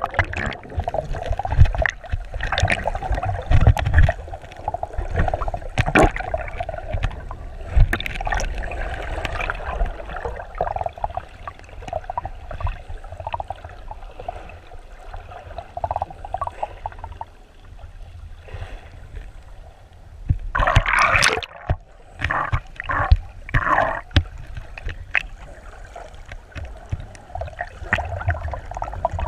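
Muffled underwater water noise on a camera in a waterproof housing: a steady low rumble with irregular gurgles and knocks. About two-thirds of the way in comes a louder burst of splashing and bubbling, followed by several shorter bursts.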